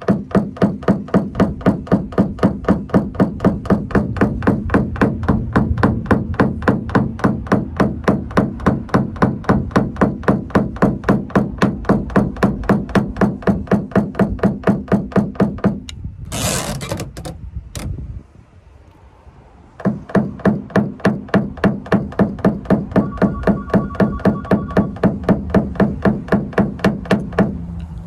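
Paintless dent repair tap-down hammer with a plastic head tapping rapidly and evenly, about four to five strikes a second, on a car's quarter panel to knock down high spots of the dent. Around the middle the tapping stops for a few seconds with a brief hiss, then resumes at the same pace.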